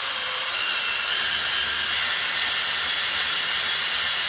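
Cordless drill running steadily with a thin whine, driving a 12 x 1.5 mm tap into a head-bolt hole of an aluminium Cadillac Northstar engine block to cut fresh, oversize threads.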